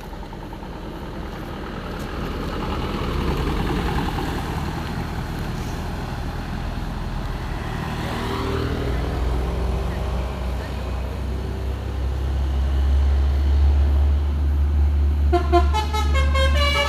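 Heavy Hino 500 truck's diesel engine running, its low rumble growing steadily louder. About fifteen seconds in, a Basuri V3 telolet horn starts playing a stepped multi-note tune.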